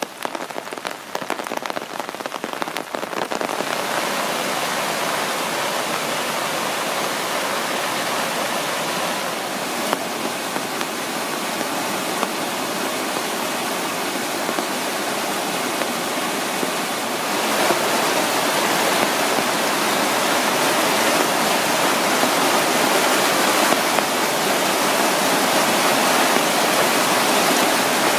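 Rain pattering for the first few seconds, then the steady rush of a swollen creek in flood, which turns louder about two-thirds of the way through.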